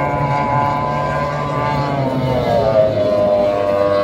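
F1 racing powerboat's outboard engine running flat out as the boat passes, its pitch dropping about two and a half seconds in as it goes by.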